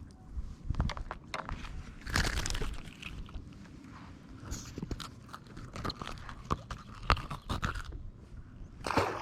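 Irregular clicks, knocks and scrapes of fishing tackle being handled, over a low background hiss.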